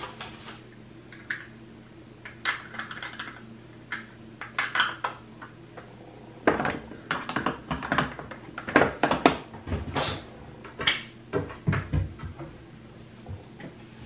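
Irregular clicks, taps and clatter of makeup containers and tools being picked up, opened and set down on a hard counter, sparse at first and busier from about halfway through, over a steady low hum.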